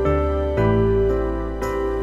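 Gentle instrumental background music, with sustained notes and new chords coming in about every second.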